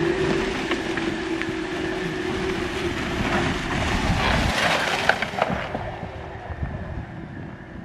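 Jeep Wrangler Rubicon 4xe driving up a snowy dirt bank: tyres churning and crunching through snow and frozen ground with scattered clicks, and a steady drivetrain hum that fades out within the first few seconds. The sound grows fainter as the Jeep moves off over the crest.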